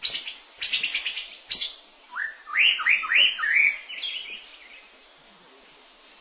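White-rumped shama (murai batu) singing: a few harsh rasping notes, then a quick run of four or five loud arched whistles about two seconds in, trailing off by about four seconds.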